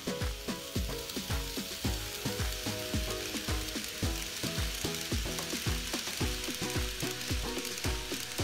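N-gauge model freight train of Taki 43000 tank wagons rolling past on the track: a steady hiss and rattle of small metal wheels, loudest in the middle of the pass. Background music with a steady beat plays throughout.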